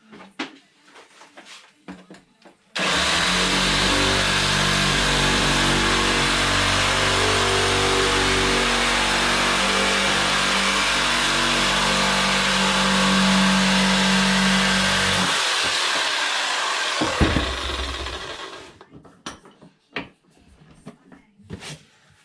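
A reciprocating saw cutting the ballast weight off a plastic duck decoy. It starts suddenly and runs steadily for about fifteen seconds, with a knock near the end as the weight comes off, then winds down. There are small handling clicks before and after it.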